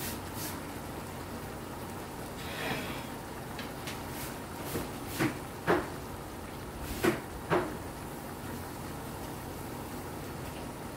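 Pork, potato and onion stew in gravy simmering in a pan, a steady bubbling, broken by four sharp knocks in two pairs about halfway through.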